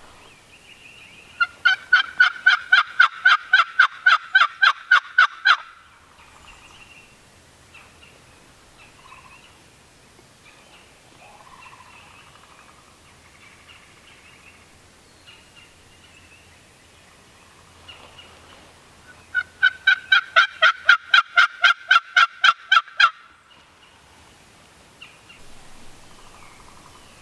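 Turkey yelping: two long, loud runs of rapid yelps, one a couple of seconds in and another about twenty seconds in.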